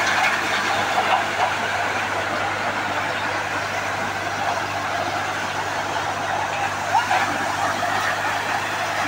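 Tractor-powered Malwa crop thresher running steadily while pigeon pea plants are fed into it: a constant low engine hum under a dense rushing noise of the stalks going through the threshing drum.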